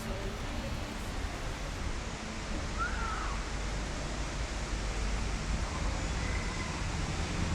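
Steady rushing noise of the Salto del Laja waterfalls, an even roar with no rhythm. A brief faint chirp comes about three seconds in.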